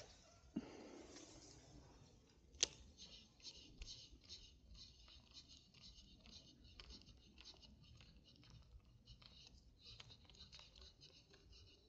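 Fishing reel cranked to retrieve a cast lure: one sharp click about two and a half seconds in, then a steady run of fine, quiet clicking and ticking from the reel's gears as the handle turns.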